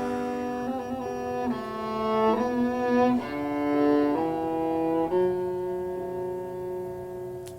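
Background music of slow bowed strings, sustained notes changing every second or so, fading toward the end.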